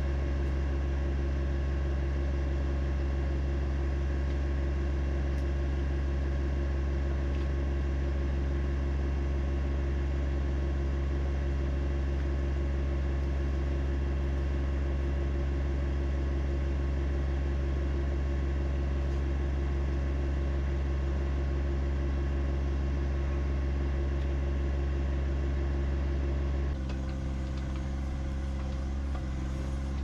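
John Deere 1025R compact tractor's three-cylinder diesel engine running steadily, with a slight drop in level and a small change in its sound about 27 seconds in.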